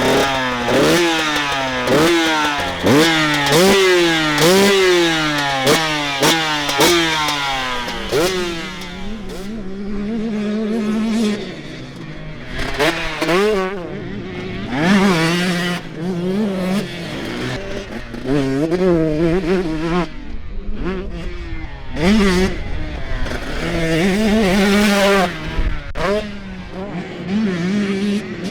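Husqvarna TC125 two-stroke motocross bike converted to 150cc with a new cylinder, piston and exhaust valve, ridden hard: the engine revs climb in quick repeated sweeps as it shifts up through the gears in the first eight seconds, then rise and fall with the throttle, with steadier stretches between.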